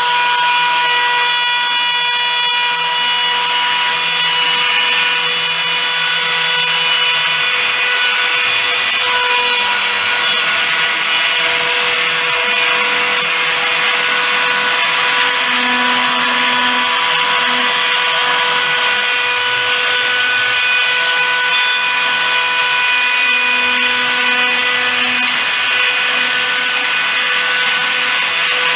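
A small power tool running steadily, with a constant high whine over a cutting or grinding noise.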